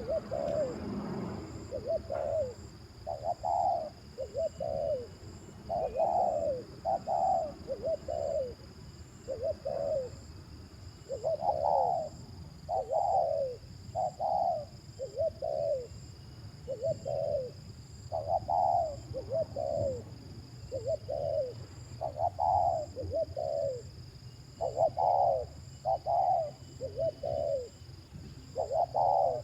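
Spotted dove cooing in close-packed phrases of two to four low coos, about one or two a second, with short pauses between phrases.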